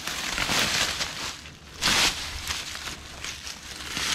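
Dry leaf litter and soil rustling and crunching as hands scrabble at the ground, in irregular bursts with the loudest about two seconds in.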